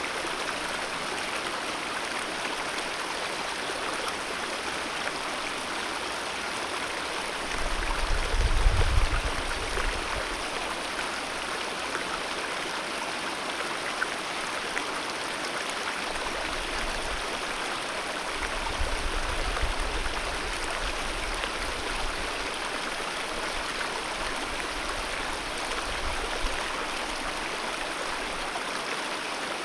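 Alpine mountain river rushing over rocks, a steady, even roar of running water. A low rumble swells briefly about eight seconds in and comes back more faintly in the second half.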